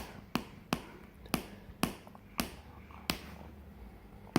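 Wolfdog puppy at play with a plush toy, making a series of short, sharp clicks at uneven intervals, roughly two a second.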